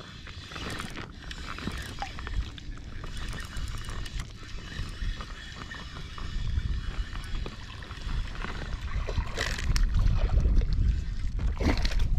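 Wind noise on the microphone and small waves lapping against an inflatable float tube, growing louder about halfway through, while a spinning reel is cranked. Near the end a hooked bass leaps and splashes at the surface.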